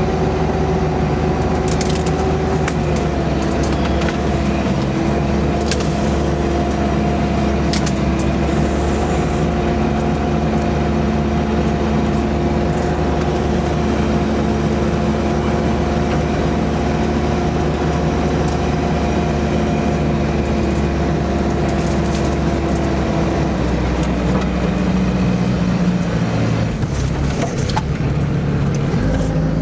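Sherp amphibious ATV's diesel engine running with a steady drone as it crawls along a brush-strewn trail. Its pitch drops slightly about two and a half seconds in and again later on. Now and then there are sharp cracks of twigs and branches snapping.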